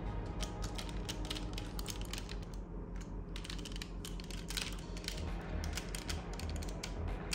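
Plastic parts of a Bandai DX Gao Hunter combining robot toy clicking and ratcheting as they are handled and snapped together: a quick, irregular run of sharp clicks.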